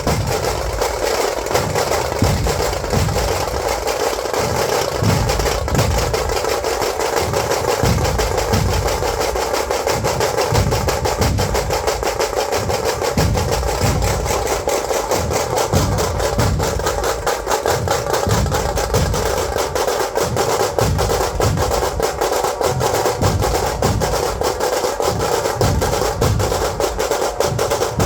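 Dhol-tasha drum ensemble playing: a dense, rapid tasha roll over heavy dhol beats about once a second.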